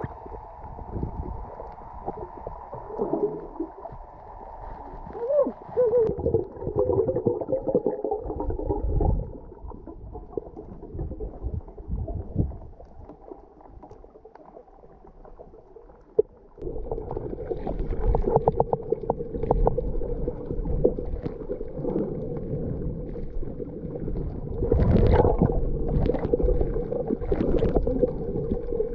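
Muffled underwater sound while snorkeling: gurgling water and irregular surges of sloshing. About halfway through it changes suddenly to a louder, steadier hum, with a few sharper gurgles near the end.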